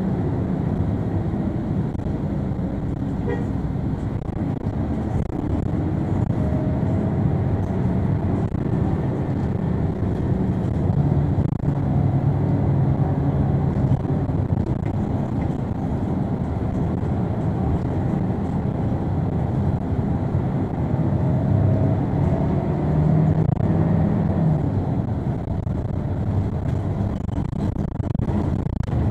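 Transjakarta city bus in motion, heard from inside the cabin: a steady engine and road rumble. The engine note swells twice as the bus pulls harder.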